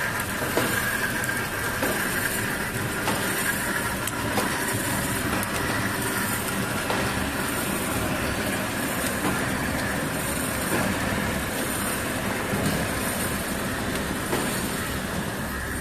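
Shrink wrapping machine running: a steady mechanical whirr with occasional faint clicks.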